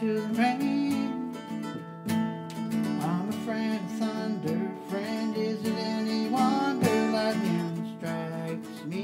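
Acoustic guitar strumming chords in an instrumental break of a country song, with a melody line sliding up and down in pitch above the chords in the middle of the break.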